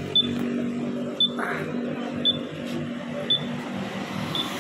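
A short, high-pitched electronic beep repeating about once a second over a steady low hum, with light handling noise from a plastic phone-mount clamp being fitted.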